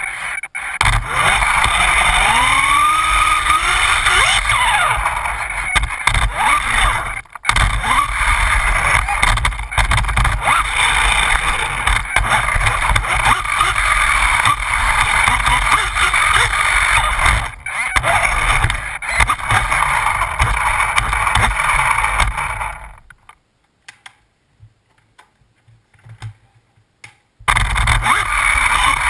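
Losi Mini 8ight RC buggy's brushless electric motor whining up and down with the throttle over steady drivetrain and tyre noise. The sound cuts out briefly a few times, and near the end drops to near quiet for about four seconds before starting again.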